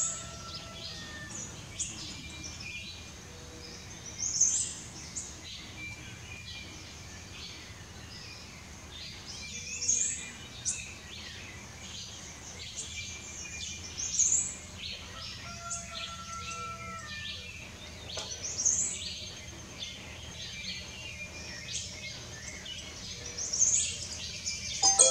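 Birds calling: one loud high call, falling in pitch, comes about every four to five seconds, six times, over a steady chorus of many softer chirps and a few lower whistles.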